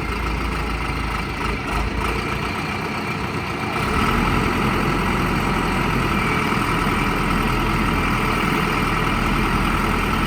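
Heavy construction machine's engine running steadily, growing louder about four seconds in.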